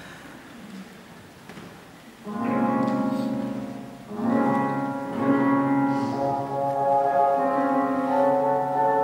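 Classical instrumental music with a piano: slow, held chords begin about two seconds in, after the last of the applause fades out.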